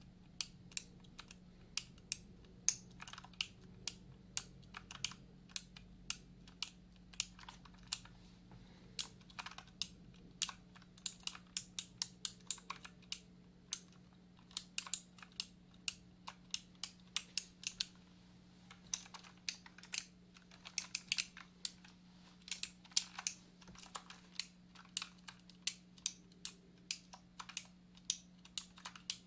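Typing on a computer keyboard: irregular runs of quick key clicks broken by short pauses, over a faint steady low hum.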